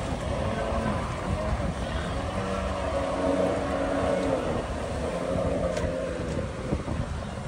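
Kawasaki stand-up jet ski's two-stroke engine running under way on the water, its steady note clearest in the middle, over a low rumbling noise.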